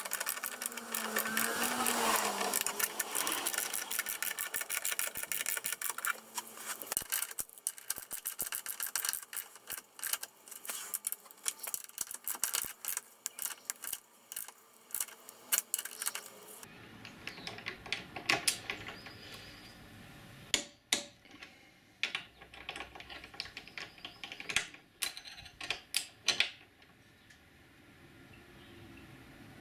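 Socket ratchet wrench clicking rapidly and steadily as tow-bar mounting bolts are run in. After an abrupt change about two-thirds of the way through, there are only a few separate sharp clicks from the wrenches as the bolts are tightened.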